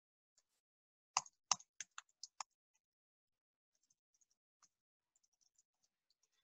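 Computer keyboard keystrokes: a quick run of about six key presses a little over a second in, followed later by a few faint clicks.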